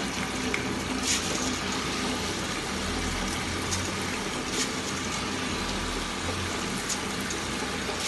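Ultra tabletop wet grinder running, its drum turning against the stone rollers and churning soaked rice and water in a steady wet swish, with a few sharp clicks.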